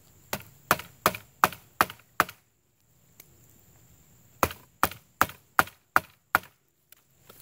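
Sharp wooden knocks as a tiny Victorinox Classic Swiss Army knife is beaten into a freshly cut green sapling stick: a run of six blows about three a second, a pause, then six more.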